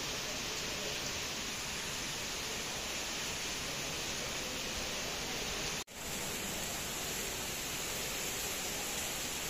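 Heavy rain falling steadily, a dense even hiss. The sound drops out for an instant about six seconds in, then the rain carries on unchanged.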